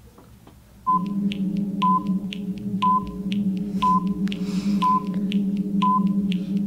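Quiz-show countdown music starting about a second in: a steady low drone with a short high beep once a second and lighter ticks between. It is the clock for the contestant's thinking time.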